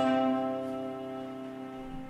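An acoustic guitar chord left ringing and slowly fading, a pause in the music with a low held note sustaining beneath it.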